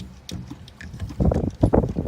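Clicks and clunks of August Smart Lock hardware being shoved onto its mounting plate on a door deadbolt and its tabs pressed down. A few light clicks at first, then a cluster of louder clunks in the last second.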